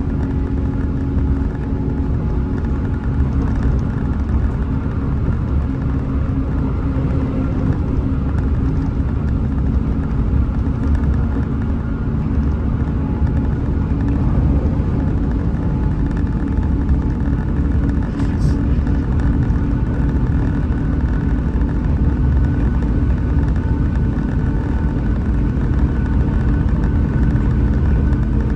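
Hino RM 280 bus's diesel engine running steadily at cruising speed, with a steady low rumble of road noise underneath.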